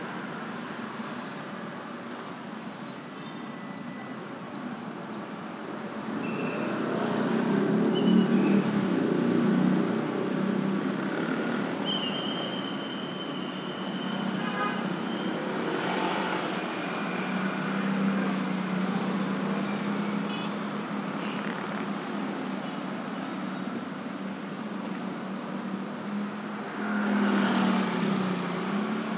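Street traffic on a busy town road: motorbikes and cars passing close, with louder passes about seven to ten seconds in and again near the end. A short high steady tone sounds about twelve seconds in.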